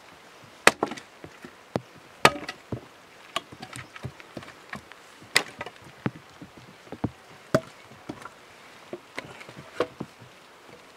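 An axe chopping firewood into thinner pieces: sharp strokes at an uneven pace, about five loud ones, with lighter knocks of wood between.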